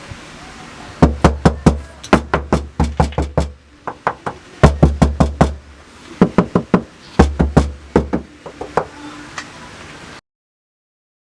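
Knock test on the body of a 2012 Corvette Grand Sport: knuckles rapping on a panel, in three quick runs of about four to five knocks a second, each knock with a deep thud. The test shows how much the panel rings and resonates before and after Dynamat sound deadening.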